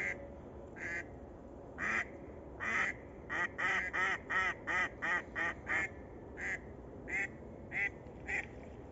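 Live hen decoy duck, a domestic mallard type, quacking in a calling series: a few single quacks, then a fast run of quacks about three a second in the middle, then slower spaced quacks near the end. This is the decoy hen working, calling at dusk to draw wild ducks in.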